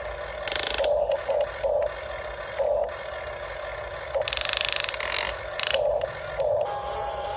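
Huina radio-controlled model excavator working: its small electric motors and gears whir in short bursts, with a rapid clicking rattle near the start and again about four seconds in.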